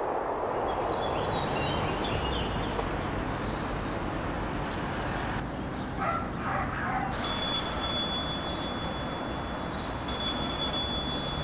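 Public payphone ringing twice, two short rings about three seconds apart, over a steady outdoor background hiss.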